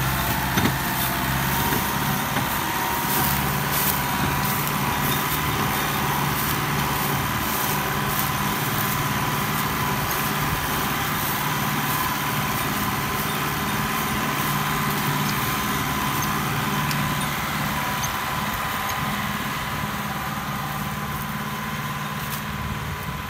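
Fiat 640 tractor's diesel engine running steadily under load as it hauls a heavily loaded sugarcane trolley over soft, wet field ground, growing a little fainter near the end as it pulls away.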